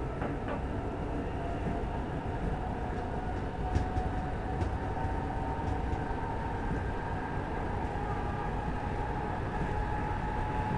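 Stockholm commuter rail X10 electric multiple unit running, with a steady rumble of wheels on rail and a whine that slowly rises in pitch. A few short clicks come about four to five seconds in.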